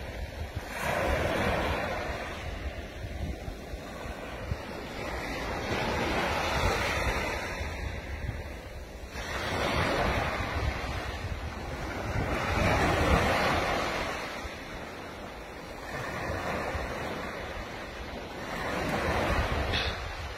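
Small waves breaking and washing up a sandy beach, the surf swelling and fading about every three seconds, with wind rumbling on the microphone.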